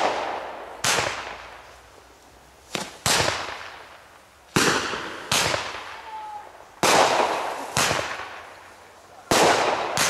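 Consumer firework battery shots bursting in the air: about eight sharp bangs, one every second or two, each fading out over a second or so.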